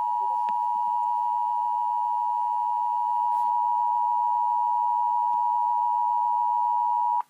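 Emergency Alert System two-tone attention signal: two steady tones, 853 and 960 Hz, sounding together as one harsh, even tone that cuts off abruptly near the end. It heralds an emergency alert, here a National Weather Service flood warning.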